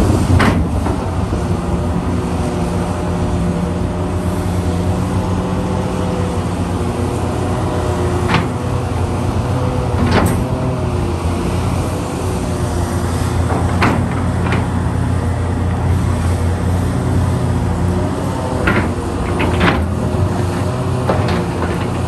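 Hitachi Zaxis 670 excavator's diesel engine and hydraulics running steadily under load while it digs, with several sharp knocks as the bucket works in the pit.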